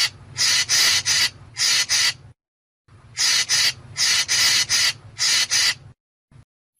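Harsh, rasping chatter of a treepie (chim khách): short grating notes, about three a second, in two runs with a brief silence between them about two seconds in. The calls stop about a second before the end.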